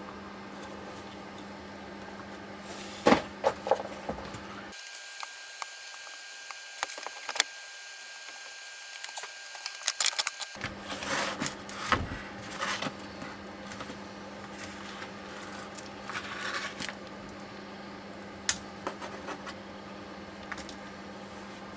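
Metal tools and steering rack parts clinking and clanking in irregular clusters of sharp knocks and taps, over a steady low hum.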